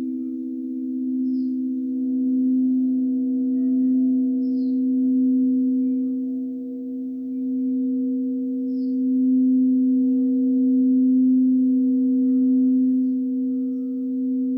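Quartz crystal singing bowls, several sounding together in overlapping, steady tones that slowly swell and ebb.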